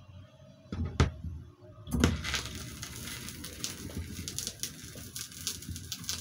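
Two sharp clicks about a second in as the controls of a stacked hi-fi stereo are worked, then from about two seconds a steady crackling, rustling noise.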